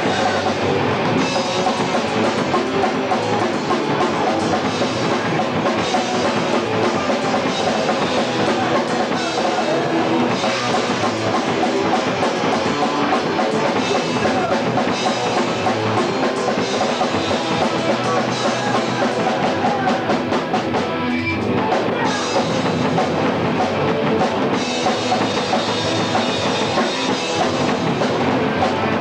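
Hardcore punk band playing live: electric guitars and a fast, pounding drum kit, loud and continuous, with the muffled top end of a home VHS camcorder recording.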